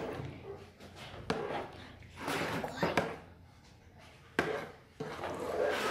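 Metal spoon stirring a thick, foamy mousse mixture in a pot, with several sharp knocks and scrapes of the spoon against the pot's side and rim.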